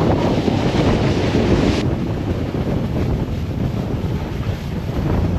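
Wind buffeting the microphone while riding downhill at speed, a loud, unpitched rush; the higher hiss drops away about two seconds in.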